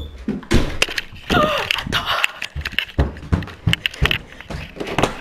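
Camera handling noise: irregular knocks, bumps and rustles as the camera is grabbed and carried off in a hurry.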